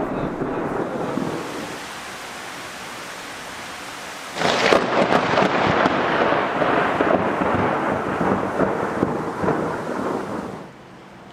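Thunder from a close lightning strike: a sudden sharp crack about four seconds in that rolls into a rumble lasting about six seconds, over steady rain. At the start the tail of an earlier rumble is fading.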